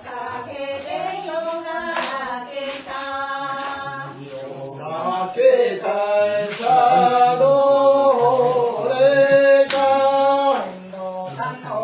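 Several voices singing a Japanese folk-dance song together in long, drawn-out phrases. The singing gets louder about halfway through and drops back near the end.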